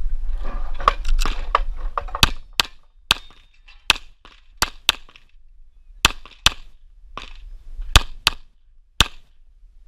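Tanfoglio Stock II 9x19 mm pistol firing a rapid string of about a dozen shots, most of them in quick pairs, a stage course of fire in practical shooting.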